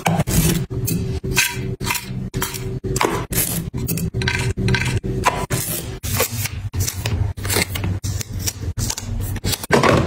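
Plastic food-storage boxes and lids being handled, stacked and set down: a quick run of sharp clicks, taps and scrapes, several a second, over a steady low hum.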